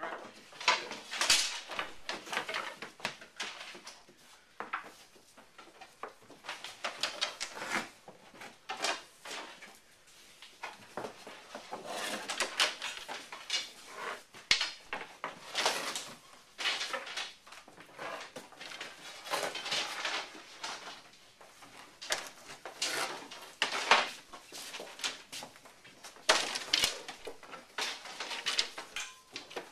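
Go-bars being sprung into place to clamp a harpsichord soundboard during gluing: irregular wooden clacks and knocks, often several in quick succession, as a few people set the bars fast.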